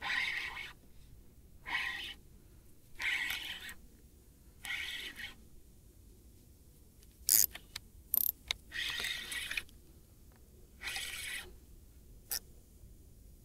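An angler fighting a hooked fish on a bent spinning rod and reel: short rasping bursts about every one and a half seconds, with a few sharp clicks a little past the middle.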